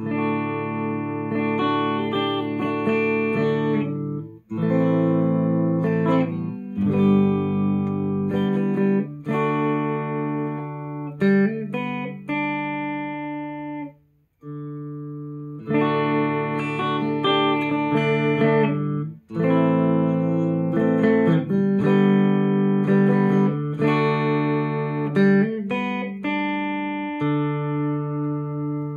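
Clean electric guitar chords strummed and left ringing through an IR loader pedal playing a two-mic speaker-cabinet impulse response. The playing pauses briefly a few times, with a full stop about halfway, and ends on a chord fading out.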